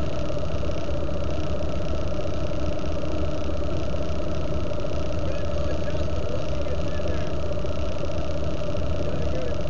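A vehicle engine idling steadily, holding one pitch with no revving.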